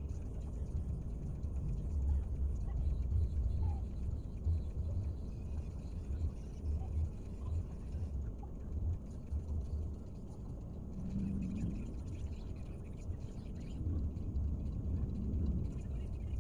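Low, uneven rumble inside a parked car's cabin, with faint voices of people outside about eleven seconds in and near the end.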